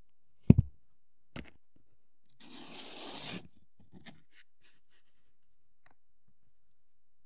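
Hands working with plastic miniature parts and hobby tools on a work surface: a sharp double knock, a lighter knock, then about a second of scraping or rustling, and a few faint clicks.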